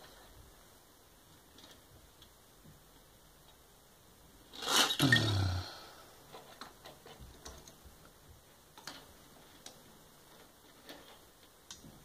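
Small toy cars clicking and tapping against a plastic garage playset as they are handled, with one louder rushing clatter lasting about a second, about four and a half seconds in.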